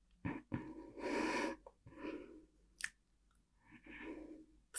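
A woman breathing close to the microphone, a few separate breathy exhales, the loudest about a second in, with small sharp mouth clicks between them.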